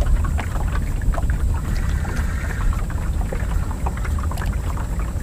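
Water lapping and splashing against the hull of a small boat, over a low uneven rumble, with scattered small knocks.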